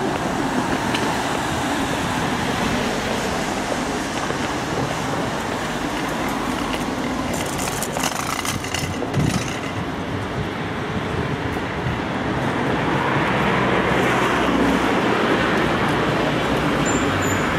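Steady road traffic noise from a city street, growing a little louder over the second half.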